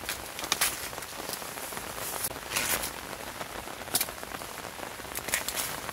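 Corn leaves and stalks rustling as they are handled: several short crisp swishes over a steady patter.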